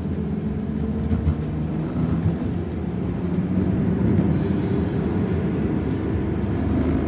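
Steady low rumble of a car driving on the road, heard from inside the car: road and engine noise.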